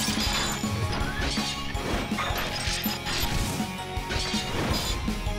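Cartoon robot-transformation sound effects, a quick run of mechanical clanks and hits, over background music.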